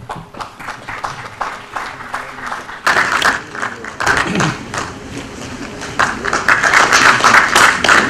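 Audience applauding in a large hall: scattered claps at first, growing fuller about three seconds in and strongest near the end.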